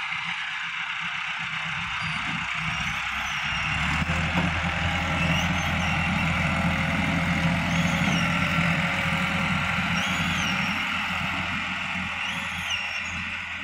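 Massey Ferguson 385 tractor's four-cylinder diesel engine running steadily under load while pulling a seed drill, a little louder through the middle.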